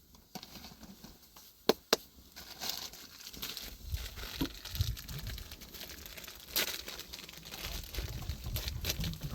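Crinkling, rustling handling sounds with many small crackles, after two sharp clicks close together a little under two seconds in; a louder click stands out near seven seconds.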